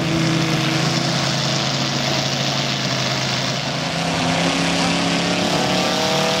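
Engines and propellers of radio-controlled 3D aerobatic model planes in flight, a steady drone whose pitch rises near the end.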